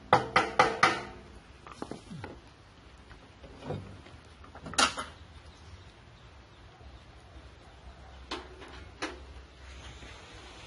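A rhythmic percussive tune of ringing strikes that ends about a second in, followed by a few scattered single knocks and clunks over a faint background.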